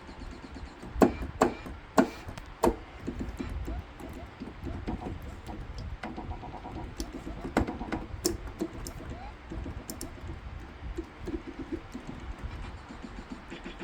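Keys struck irregularly on an electronic musical keyboard, giving scattered short notes. The loudest strikes come in the first three seconds, then softer notes follow throughout.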